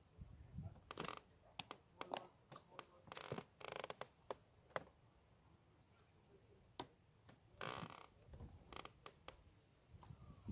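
Faint handling noise of an angler at work with his tackle: a dozen or so scattered small clicks and two short rustling scrapes.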